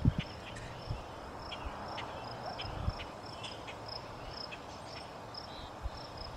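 Cricket chirping steadily, a short high chirp about two to three times a second, over a faint steady background hiss. A few soft low thumps, the loudest right at the start.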